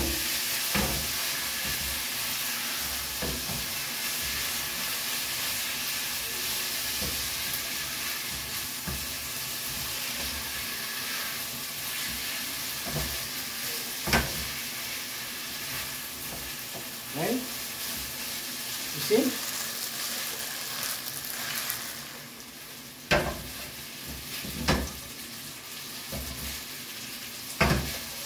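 Spaghetti frying and sizzling in garlic oil in a frying pan over a gas flame while a wooden spatula stirs and tosses it. The steady sizzle is broken by sharp knocks of the spatula against the pan, a few of the loudest coming in the last third.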